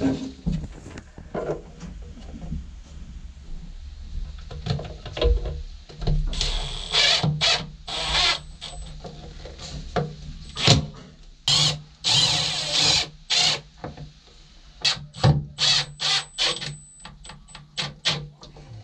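Cordless drill run in bursts, driving screws to mount a unit inside a boat console. There are longer runs in the middle and a quick series of short trigger pulses near the end, with handling clatter between.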